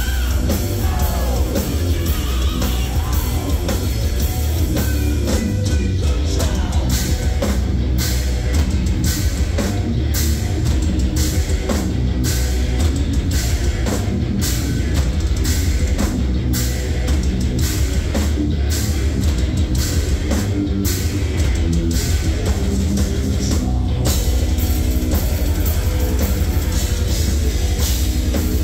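Heavy metal band playing live through a PA: distorted electric guitars, bass and a pounding drum kit, with the singer's vocal near the start.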